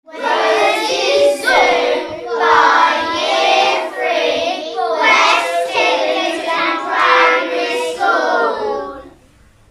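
Young children singing a tune over the title card; the singing stops about nine seconds in.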